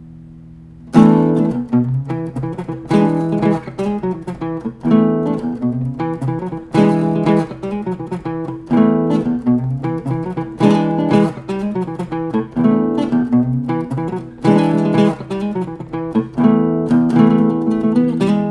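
Solo cutaway steel-string acoustic guitar played fingerstyle in an instrumental piece. A held chord rings and fades at first, then about a second in a loud chord starts a busy run of picked notes and accented chords.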